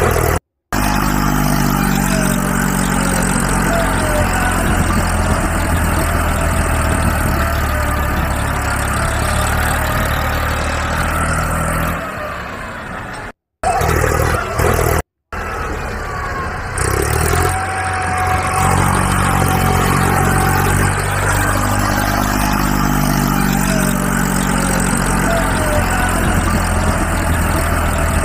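Tractor engine running low and steady, its revs drifting slowly up and down; it breaks off briefly three times at cuts.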